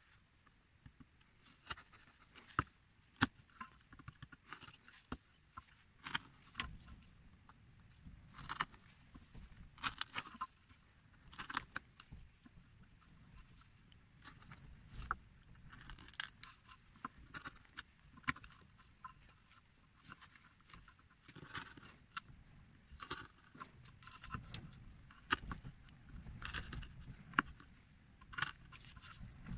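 A hand carving tool scraping and cutting at a small carved figure: irregular short scrapes with now and then a sharp click, several strokes in quick runs.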